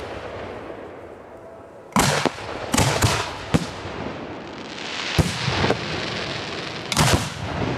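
Professional aerial fireworks display going off: sharp booms of shells, several in quick succession about two to three and a half seconds in, another about five seconds in and a pair near the end, with a softer rushing hiss in between.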